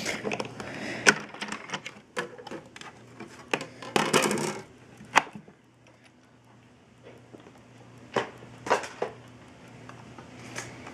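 Clicks, knocks and a brief rustle of plastic cutting plates and an embossing folder being handled and taken out of a Sizzix Big Kick die-cutting machine. The clicks come thickly through the first few seconds, with a short scraping rustle about four seconds in, then only a few light taps.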